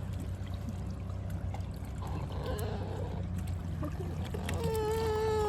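Dog whining at swans, a high drawn-out whine held for over a second near the end, over a steady low background hum.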